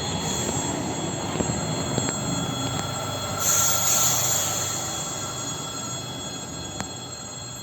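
An EG2Tv Ivolga electric train running past and receding, its rumble slowly fading, with steady high-pitched tones over it and a brief high hiss about three and a half seconds in.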